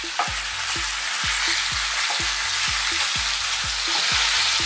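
Pork ribs sizzling as they stir-fry in hot oil over medium-high heat. Under the sizzle runs background music with a steady low beat, about two kicks a second.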